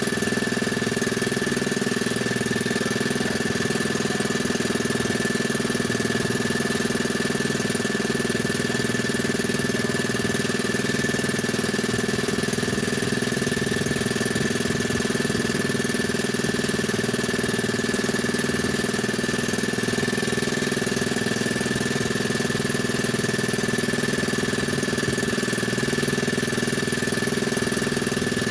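Small boat engine running steadily at a constant speed, with an even high whine over its drone.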